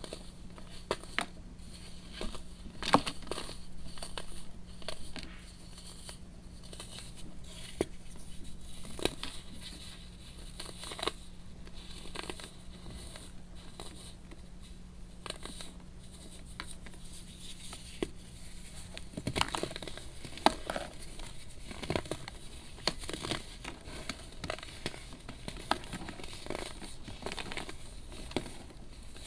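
Crunchy baking soda crumbling, with irregular crisp crackles and snaps, busiest about two-thirds of the way through.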